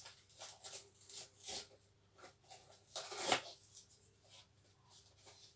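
Packaging of a pack of colored pencils being handled and opened: a string of short rustles and scrapes, the loudest about three seconds in.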